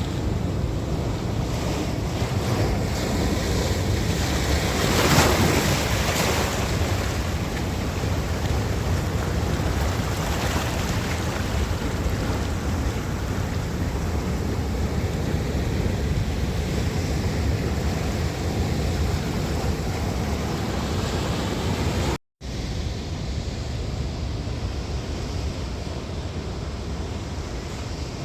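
Ocean surf washing onto a beach in a steady rush, with wind buffeting the microphone. One wave breaks louder about five seconds in, and the sound cuts out for a moment near the end.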